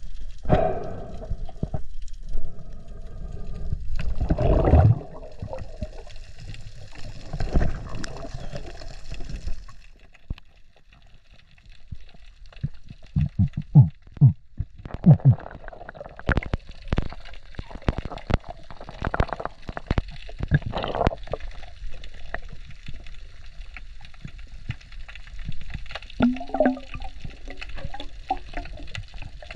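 Water splashing at the surface for the first few seconds, then muffled underwater noise on a diver's camera, with scattered sharp clicks and low knocks in the middle and a short faint tone near the end.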